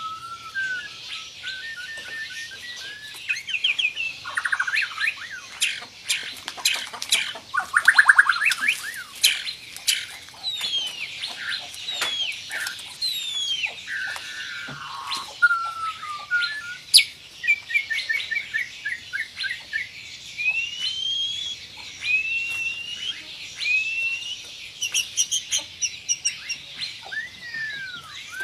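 White-rumped shama (murai batu) singing a long, varied song: fast rattling trills, runs of clipped repeated notes, sharp click-like notes, and a series of rising whistles in the second half.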